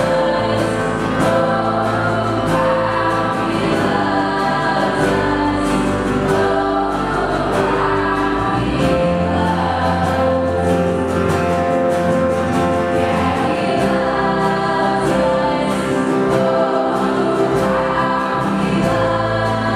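Live band music: several female singers singing together over acoustic and electric guitars, with long held chords.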